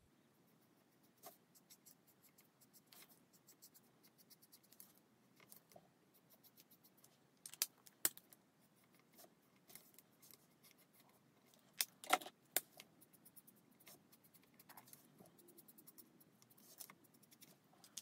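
Faint, quick scratchy strokes of a Stampin' Blends alcohol marker's tip across cardstock as leaves are coloured in. A few louder clicks come about 8 and 12 seconds in.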